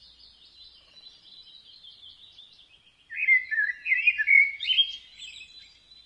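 Common blackbird singing: a loud, fluty warbled phrase about three seconds in, between stretches of fainter, high twittering.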